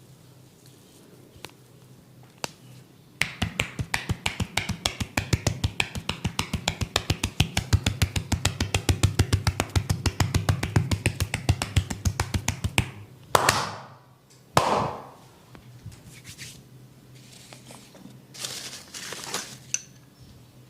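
Rapid, evenly spaced hand slaps of a percussive head massage, several a second for about ten seconds, then stopping. Two short brushing swishes of hands over hair and skin follow, and another comes near the end.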